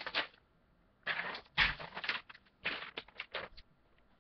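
Rustling and handling noises close to the microphone, in several short irregular bursts with brief pauses between.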